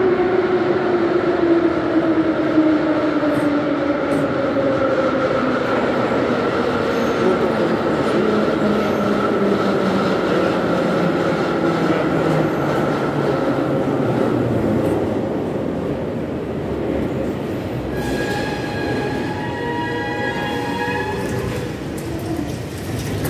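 Vintage metro train pulling into the station, its motor whine falling steadily in pitch as it slows. Near the end comes a high squeal that starts and stops several times as the train comes to a halt.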